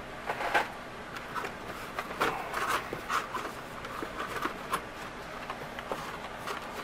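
Hot Wheels blister-pack cards being handled and pulled from a cardboard shipping case: irregular plastic clicks, clacks and rustles, with no steady rhythm.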